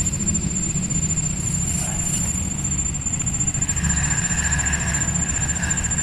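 Spinning fishing reel whirring as a hooked fish is wound in, starting a little past halfway. Under it are a steady high-pitched whine and a low rumble.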